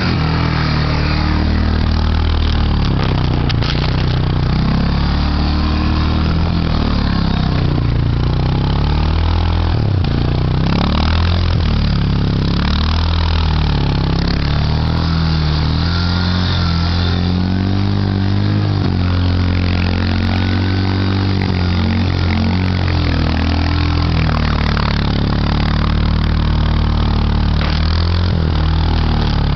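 Yamaha Big Bear 350 ATV's single-cylinder four-stroke engine running, revving up and dropping back again and again.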